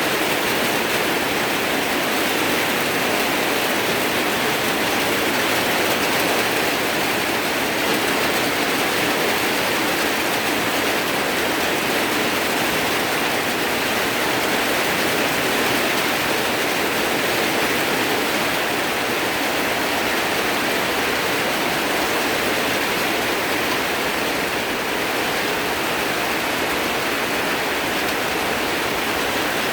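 Steady, unbroken rush of water, like a waterfall or fast stream.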